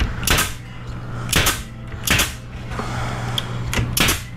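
Pneumatic 18-gauge stapler firing four times at irregular intervals, driving 1-inch staples through a plywood back panel into a cabinet box.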